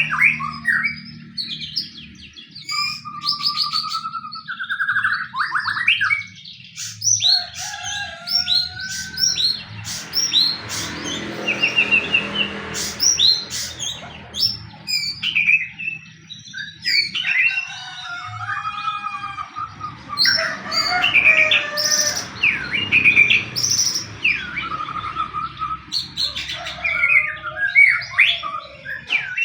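White-rumped shama (murai batu) singing a fast, varied fighting song of rich whistles, trills and sharp chip notes, with hardly a pause, over a faint steady low hum.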